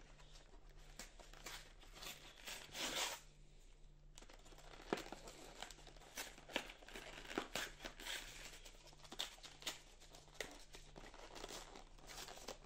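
Quiet rustling, crinkling and tearing of packaging being pulled off a boxed model bus by hand, in short irregular bursts with small clicks, and a louder rustle about three seconds in.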